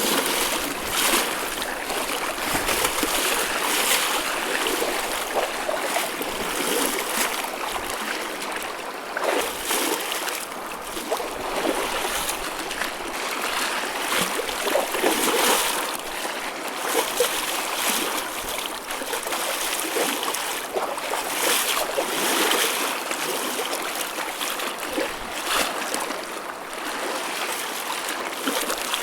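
Small waves washing and splashing: a continuous wash of moving water, broken by frequent short splashes, with no large breaking swells.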